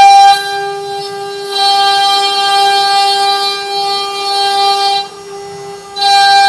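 Six-spindle CNC wood-carving router running, its spindles giving a steady high whine with overtones as the cutters carve the wooden blanks. The whine swells and fades, dipping briefly about half a second in and again for about a second near the end.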